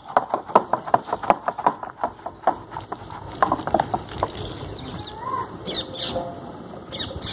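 A quick run of sharp knocks, about five a second, over the first two seconds or so, with a few more around the middle. Small birds chirp near the end.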